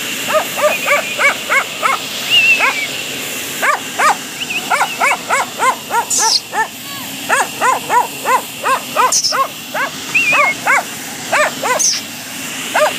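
Dog barking in quick runs of short barks, about two to three a second, with brief pauses between runs: a tan dog barking at a leashed German Shepherd.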